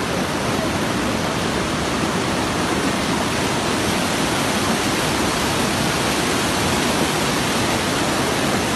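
A mountain river rushing over and between boulders: a steady, even rush of water with no breaks.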